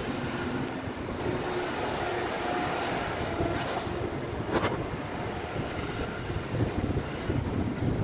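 Heavy diesel machinery running steadily, with a faint held hum and one sharp knock about four and a half seconds in.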